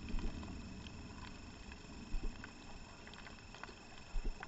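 Underwater reef ambience heard through a camera housing: a steady hiss scattered with faint crackling clicks, and dull low thumps in pairs about every two seconds.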